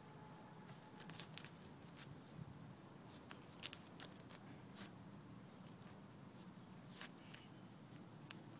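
Patterdale terrier puppy digging and rooting with its nose in loose sand: faint, irregular scratches and rustles with a few sharper clicks.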